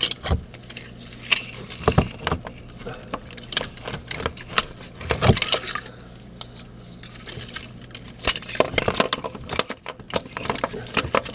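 Scattered metallic clinks, taps and knocks of a new starter motor being worked by hand up into the transmission housing of a VW Golf, over a steady low hum.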